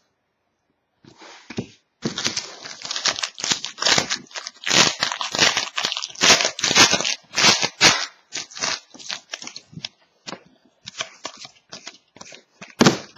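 A hockey trading-card pack wrapper being torn open and crinkled, a dense run of crackling that thins into scattered rustles, with one sharp crack near the end.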